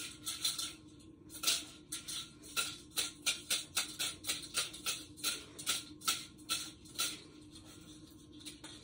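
Four hard-boiled eggs knocking against the sides of a dry stainless steel saucepan as it is shaken, about three knocks a second, cracking their shells for easy peeling. The shaking stops about seven seconds in.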